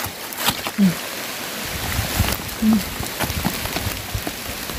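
Heavy rain falling steadily on leaves and the forest floor, with a low rumble of wind coming in after about a second and a half. Short crackles and rustles of dry leaf litter as fallen duku fruit is picked up by hand.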